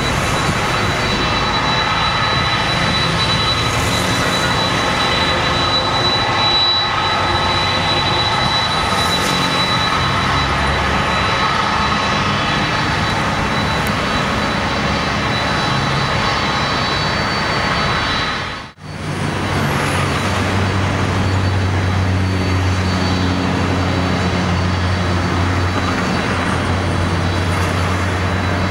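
Boeing 767-300 jet engines running at low taxi power as the airliner rolls along the ground: a steady jet rumble and hiss with a thin, high whine held on top. About two-thirds of the way through the sound briefly fades out and back in, with a deeper hum after it.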